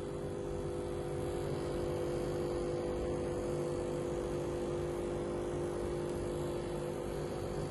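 Arissto capsule coffee machine humming steadily as it brews a big-cup Americano: its pump pushing water through the capsule.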